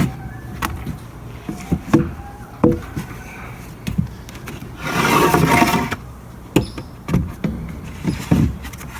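New wooden deck boards being set into place, with scattered knocks of wood on wood and a scraping sound lasting about a second near the middle.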